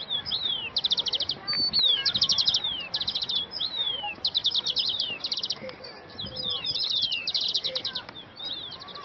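Birds chirping: repeated quick trills of short high notes, about half a second each, alternating with fast high downward-slurred whistles.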